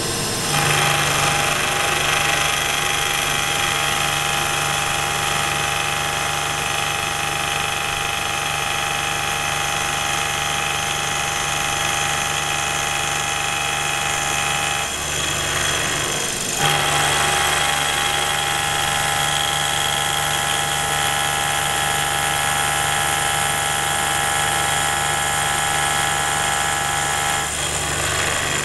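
Milling machine end mill at 1200 RPM cutting a slot in metal, a steady ringing whine of the cut over the spindle's hum. It stops for about two seconds about halfway through, then resumes and stops again shortly before the end.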